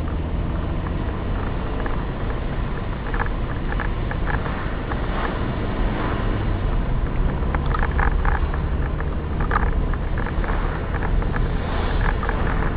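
Car engine and road noise heard from inside the cabin while driving: a steady low rumble with scattered light clicks and rattles.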